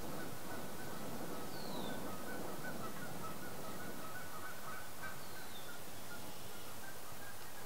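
Birds calling outdoors over a steady rush of breeze: a thin, high falling whistle comes twice, a few seconds apart, with short chattering calls underneath throughout.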